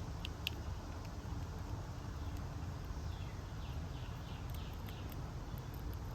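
Small backyard birds chirping: a few short high chirps at the start and a quick run of short falling notes about halfway through, over a steady low rumble.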